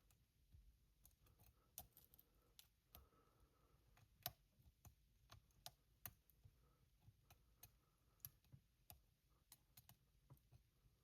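Faint, irregular clicking of a short hook pick and tension turner working the pin stack inside a Yale 125 laminated padlock during single pin picking.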